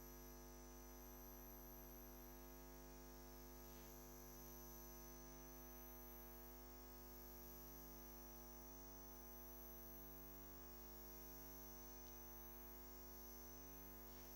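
Near silence with the feed's sound cut off: only a faint steady electrical hum and a thin high whine remain.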